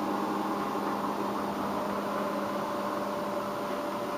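Steady electronic hum under a hiss, with several faint steady tones layered in it: a RadioShack mini amplifier/speaker sounding the HP652A test oscillator's output, set to about 54 Hz. The lowest of the tones fades out near the end.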